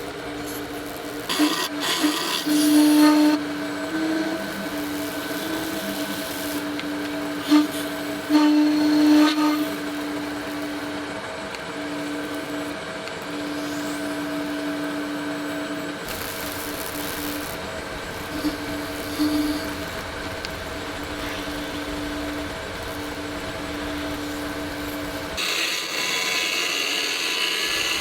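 Lathe running with a steady hum while a resin workpiece is turned, with a few louder bursts of a tool against the spinning piece about a second and a half and about eight seconds in. Near the end a brighter, hissier contact sound comes in over the hum.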